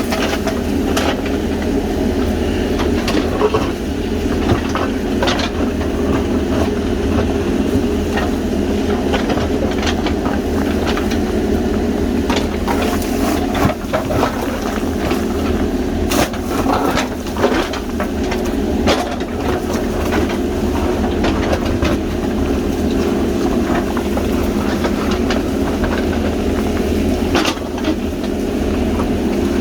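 JCB backhoe loader's diesel engine running steadily at working revs, with irregular metallic clanks and knocks from the machine as it works the ground.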